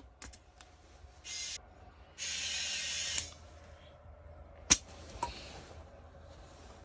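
Air hissing at a tire valve in two bursts, a short one and then a longer one of about a second, as the tire's pressure is adjusted. A sharp click follows, the loudest sound, then a smaller click about half a second later.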